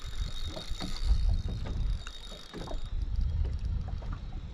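Wind buffeting the microphone and water slapping against a small boat's hull, with scattered light clicks from a spinning reel being worked while a hooked fish pulls.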